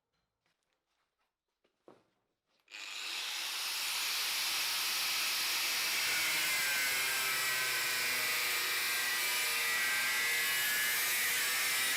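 Power tool working sheet steel: it starts up suddenly about three seconds in, after a few faint taps, and then runs steadily with a hissing, grinding noise and a faint wavering whine.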